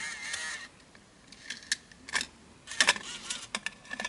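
Sony TCD-D3 DAT Walkman's tape mechanism ejecting a cassette whose tape has broken: a brief motor whir at the start, then a run of small plastic and metal clicks as the cassette holder opens and lifts out.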